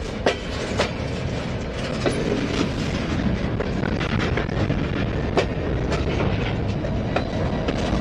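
Freight train rolling slowly past close by, a covered hopper car and then diesel locomotives. Steady low rumble and wheel-on-rail noise, broken by irregular sharp clicks and clanks of the wheels.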